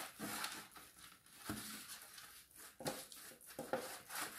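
Silicone pastry brush spreading butter over a metal baking tray: faint brushing and scraping, with a few short sharp strokes.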